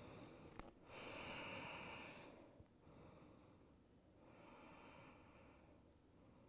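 Faint, slow breathing of a woman resting in yoga's child's pose: one long breath about a second in, then a second, softer breath about four seconds in.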